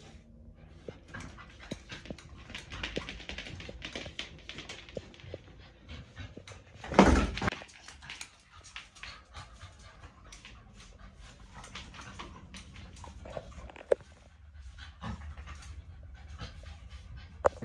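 Pit bull panting hard while working a spring pole, with many short scuffs and clicks from the swinging tug and its paws on the concrete floor. There is one loud bump about seven seconds in and a sharp click near the end.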